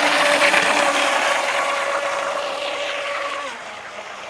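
Pro Boat Blackjack 26 brushless RC boat running at speed: a steady motor whine over a hiss of water spray. About three and a half seconds in, the whine drops in pitch and the sound fades.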